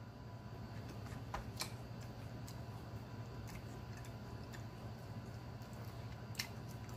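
Faint, scattered wet mouth clicks of someone chewing a bite of fried apple pie with his mouth closed, over a steady low hum.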